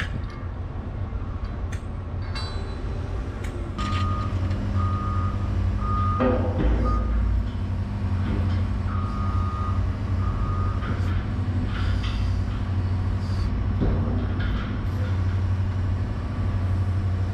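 Heavy diesel engine running steadily, with a backup alarm beeping at an even pace in two spells starting about four seconds in, and a single knock about six seconds in.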